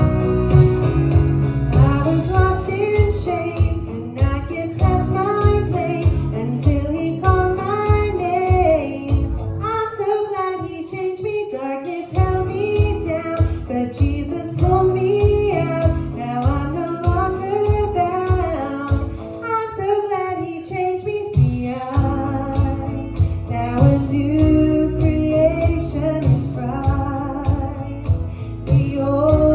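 Gospel song sung with guitar accompaniment over a steady pulsing bass beat; the bass drops out briefly twice, around a third and two thirds of the way through.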